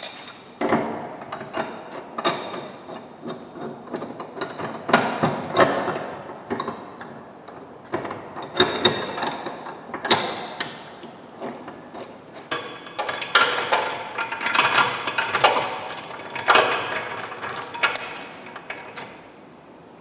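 Steel chain and metal clamp clinking and jangling as they are handled and fitted, with scattered sharp metal clicks and knocks. In the second half, a denser run of chain jangling lasts several seconds.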